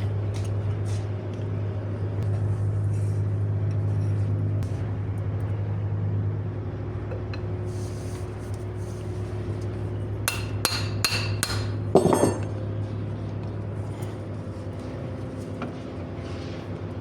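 A quick run of about seven sharp metallic hammer strikes, the last one the loudest, over a steady low hum. The strikes are typical of tapping a new outer CV joint onto a drive shaft.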